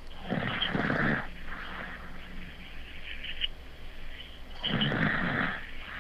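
Heavy breathing of a sleeper: two loud, noisy breaths about four seconds apart, each in two parts, with fainter breath sounds between them.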